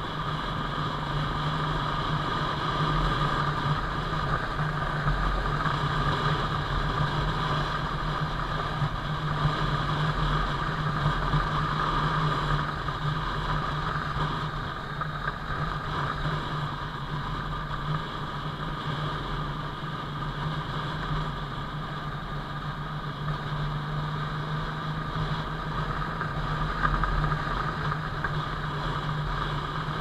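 Suzuki Intruder VS700's V-twin engine running steadily, a low drone that holds an even pitch throughout.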